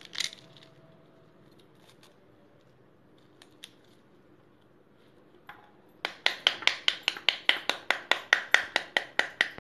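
A knife striking the skin of a pomegranate half to knock the seeds out into a steel bowl: a quick, even run of sharp taps, about six or seven a second, that starts about six seconds in and stops just before the end. Before that there are only faint clicks from handling the fruit.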